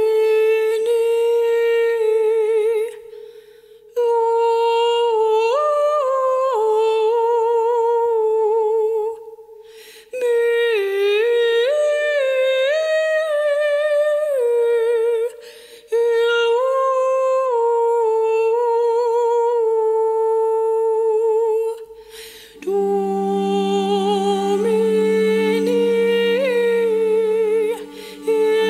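Solo female voice singing a slow, ornamented melody with wide vibrato, in long held phrases broken by short breaths. About three-quarters of the way through, a low steady drone joins beneath the voice.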